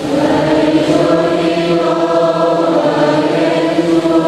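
Congregation and choir singing together in held, chant-like notes: the sung response that closes the Gospel reading at Mass.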